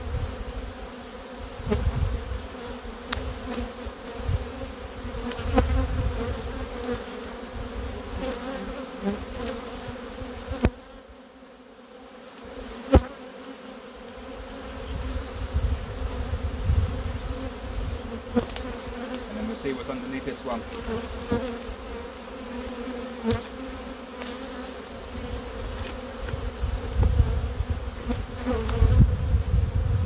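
Honey bees from an opened hive buzzing, a steady hum of many bees in flight around the beekeeper, with a sharp knock a little before the middle.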